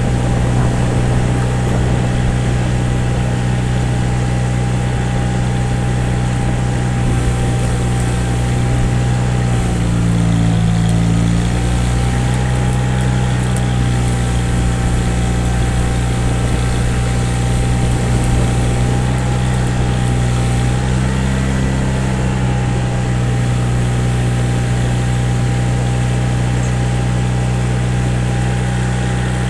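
Small gasoline engine of a portable generator running steadily, its pitch wavering briefly about ten seconds in and again about twenty-one seconds in.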